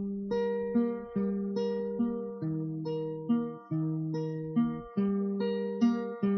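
Acoustic guitar picking a steady pattern of chords, each note or chord starting sharply about every half second and ringing on under the next.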